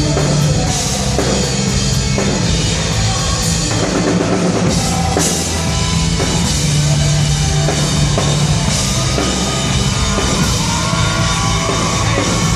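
Loud live rock band playing: distorted electric guitars, bass and a pounding drum kit, heard from the side of the stage.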